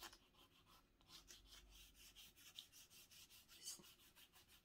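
Faint, rapid scratchy strokes of a pastel stick colouring across a paper journal page.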